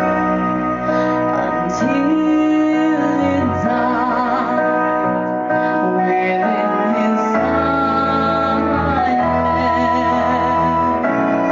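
A woman singing into a handheld microphone over an instrumental backing, holding long notes that waver with vibrato.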